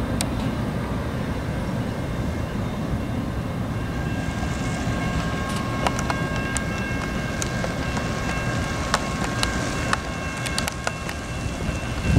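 Freight train rolling past on the tracks: a steady low rumble of wheels on rail, with faint steady high-pitched tones and scattered sharp clicks over it.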